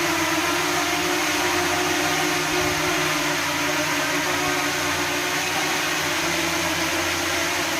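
DJI Mini 2 drone's propellers whirring steadily as it hovers against the airflow of two electric fans, mixed with the fans' steady rush of air.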